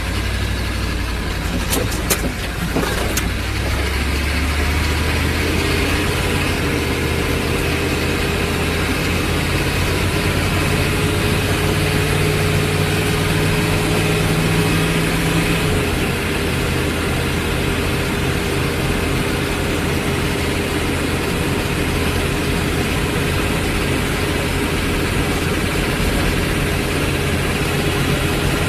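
Humvee's V8 diesel engine running steadily at idle. A few sharp clicks come about two seconds in, and its low tone changes about halfway through.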